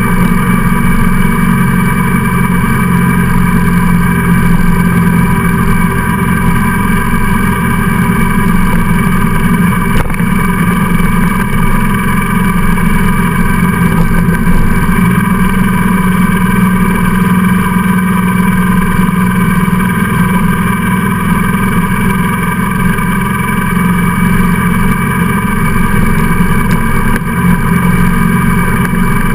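Motorcycle engine running steadily at cruising speed, mixed with wind and road noise, heard from on board the bike.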